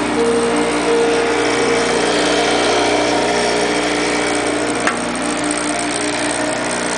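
Edgemaster II bevel edger running: a steady motor hum with mechanical noise, and one sharp click about five seconds in.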